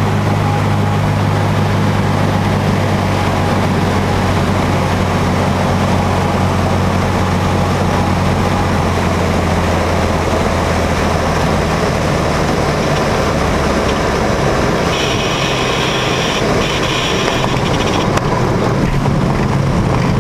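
Cessna's single-engine piston engine and propeller droning steadily, heard from inside the cabin during the approach and landing. The engine note changes about two-thirds of the way through. A high-pitched tone sounds for about three seconds near the end.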